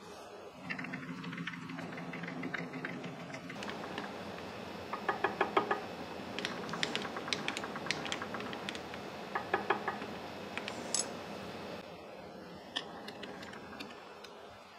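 Light metallic clicking and ticking in several quick clusters, as a dial test indicator and its holder are set up on a surface grinder. A low hum sounds under the first few seconds.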